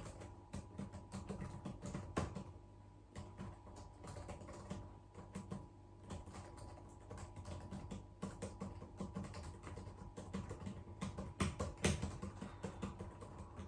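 Typing on a laptop keyboard: a quick, irregular run of key clicks with short pauses, over a faint steady hum.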